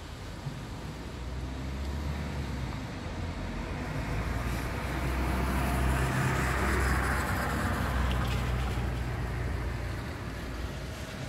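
Storm wind and heavy rain, with a low rumble and a rush of noise that swells in the middle and eases off again near the end.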